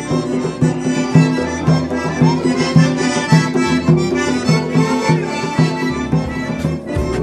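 Accordion music with a steady beat, playing a folk dance tune.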